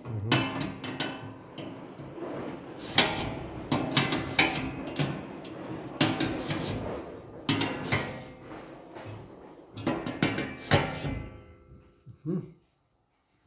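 Metal clanking and scraping as a hand-held sharpening tool is worked along the teeth of a large steel circular saw blade: irregular sharp clatters a second or so apart, dying away about twelve seconds in.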